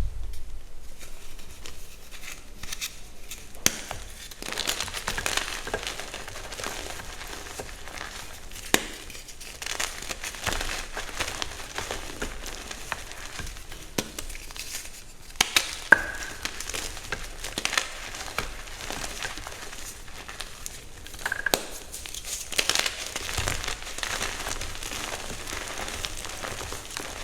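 Reformed gym chalk blocks being crushed: continuous irregular crunching and crumbling, with a few sharper loud snaps as pieces break.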